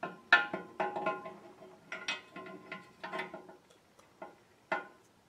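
Light metallic clicks and taps at irregular intervals, each with a short ringing: steel parts clinking against the transmission case as the front band lever and its shaft are fitted.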